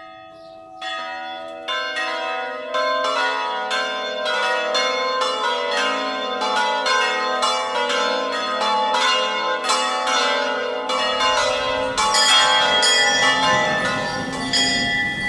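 A peal of several church bells ringing, about two strikes a second at different pitches, each one ringing on under the next.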